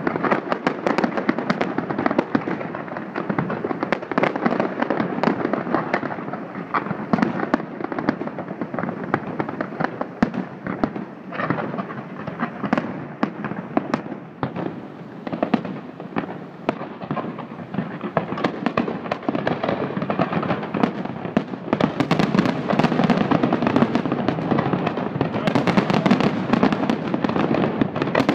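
Fireworks display: a dense, continuous barrage of bangs and crackling, growing heavier in the last several seconds.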